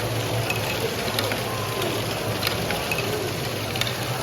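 Lego trains running on plastic track: a steady motor whir with scattered small clicks from wheels and track, over the general noise of a busy exhibition hall.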